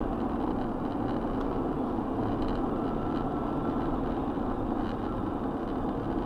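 Steady engine and road noise heard inside a vehicle cruising at highway speed.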